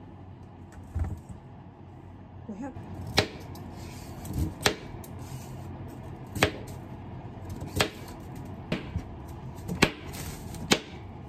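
Kitchen knife slicing peeled sweet potato on a cutting board, each cut ending in a sharp tap on the board, about seven cuts spaced a second or two apart.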